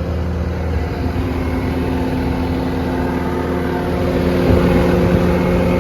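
Bobcat T750 tracked compact loader's Bobcat/Kubota diesel engine running steadily, a little louder after about four seconds.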